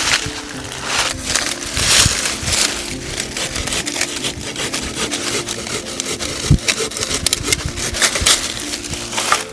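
A piece of wood is worked by hand, with repeated scraping and cracking strokes that come faster in the second half. Soft background music with held notes plays underneath.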